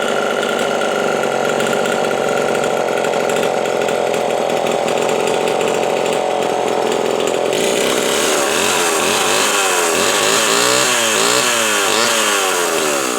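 Homelite XL12 two-stroke chainsaw running, steady for the first half, then revved up and down repeatedly. It is fitted with a new electronic ignition module.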